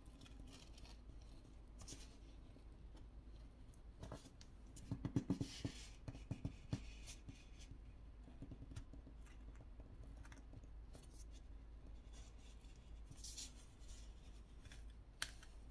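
Faint scraping of a plastic pry pick slid along the seam of a phone's glued plastic back cover, freeing the adhesive. A cluster of sharp little clicks and snaps comes about five to seven seconds in, and a single click near the end.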